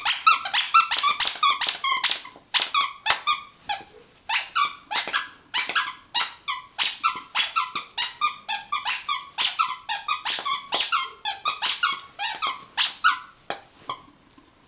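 Squeaker inside a green plush bone toy squeaking over and over, a fast run of roughly three squeaks a second, as a Jack Russell Terrier chews on it. The squeaking stops near the end.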